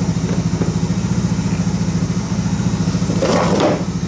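Single-cylinder motorcycle engine idling steadily, with an even pulsing beat; a brief rustle sounds about three seconds in.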